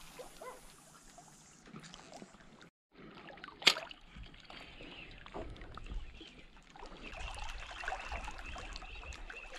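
Small waves lapping and trickling against a rocky shoreline, with scattered faint ticks. A single sharp click from the spinning reel being handled comes about three and a half seconds in, and a faint steady high tone sets in near the end.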